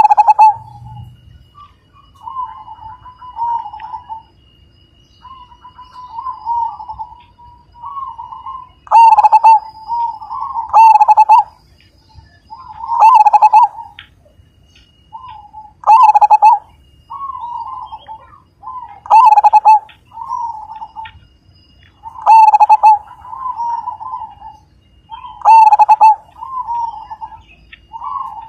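Zebra dove (perkutut) singing: repeated phrases of rolling cooing notes. The phrases are softer at first, and from about nine seconds in the bird delivers loud, full phrases every two to three seconds.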